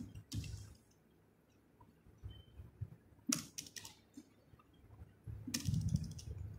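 Computer keyboard typing: three short bursts of keystrokes with quiet gaps between them, the last one, about five and a half seconds in, the loudest.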